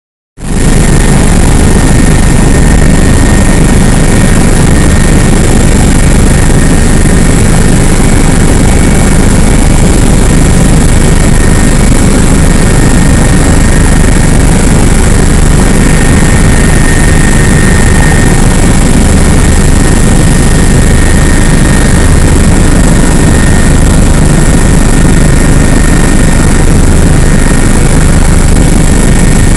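Helicopter engine and rotor noise heard from aboard in flight: a loud, steady drone that starts abruptly just after the start and never changes.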